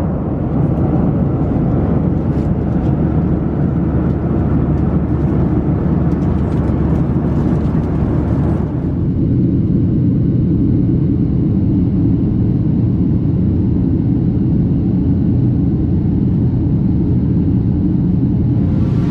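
Steady engine and airflow noise inside the cabin of a Boeing 737-700 in flight. About nine seconds in, it changes abruptly to a duller rumble with less hiss.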